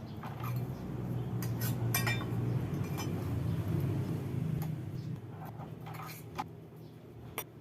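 Scattered light metallic clinks and taps of hand tools on steel plate as it is being cut, each with a brief ring, over a steady low hum.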